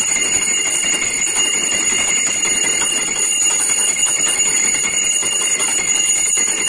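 Pooja hand bell rung rapidly and without pause, a continuous loud clanging ring with steady high tones.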